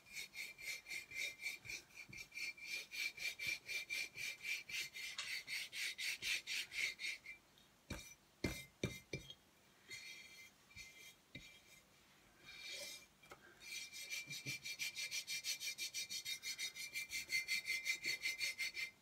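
Hands rubbing fast back and forth over a paper napkin laid on a glass bottle, pressing the napkin flat: a scratchy rubbing at about five strokes a second. It breaks off for a few seconds in the middle, with a few light knocks, then starts again.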